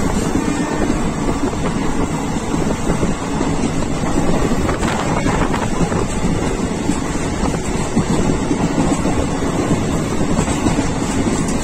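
Steady running noise of a moving train heard from on board, with wind rushing over the microphone.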